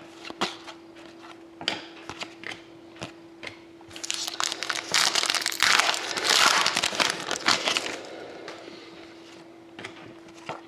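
Foil-lined paper wrapper from a trading-card pack being crumpled and torn by hand: dense crinkling from about four seconds in until about eight seconds. Before that come scattered light clicks of cardboard cards being handled, and a faint steady hum runs underneath.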